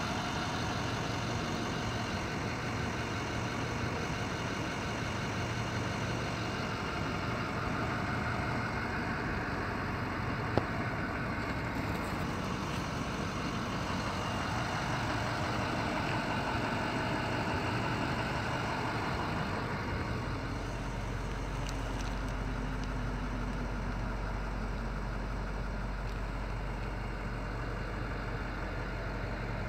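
International VT365 6.0-litre turbo-diesel V8 idling steadily, heard from inside the truck's cab, with a single sharp click about ten seconds in.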